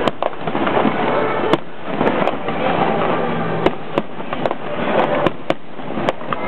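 Fireworks finale: many aerial shells bursting in quick succession, sharp bangs and cracks at irregular intervals over a dense, continuous wash of noise.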